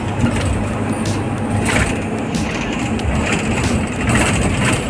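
Cabin noise of a minibus driving on a wet road: steady engine and road rumble with tyre noise.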